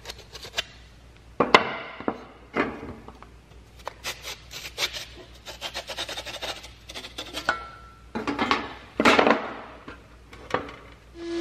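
Rusty steel handsaw blade, its handle removed, being handled on a workbench: irregular scrapes, rubs and knocks of the blade against the bench top, the loudest about a second and a half in and again near the end.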